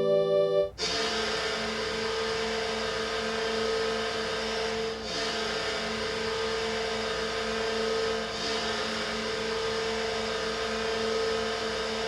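NHL arena goal horn sounding one long, steady blast, starting under a second in and dipping briefly twice near the middle. The tail of a music clip ends just as the horn starts.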